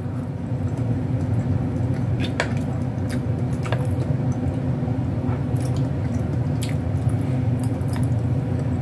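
Close-up eating sounds: a woman chewing mouthfuls of creamy penne pasta, with wet squelching mouth sounds and a few scattered sharp clicks, over a steady low hum.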